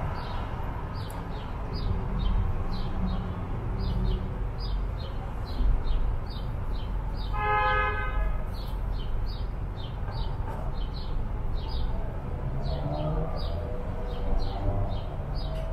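Street traffic rumbling steadily, with a bird chirping over and over. About halfway through, a vehicle horn sounds once for about a second.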